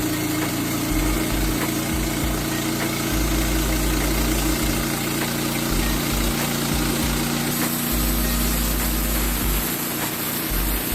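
Engine of a Norwood Lumbermate LM29 portable sawmill running steadily.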